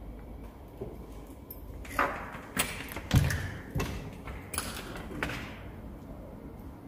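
A run of about six knocks and thuds, roughly one every half second or so, the loudest a heavy low thud about three seconds in.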